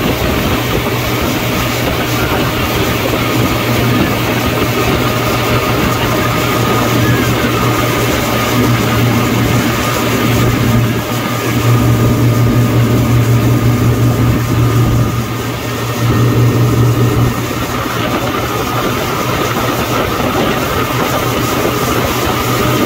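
Motorboat engine running steadily at towing speed, a low hum over the rushing water of the churning wake.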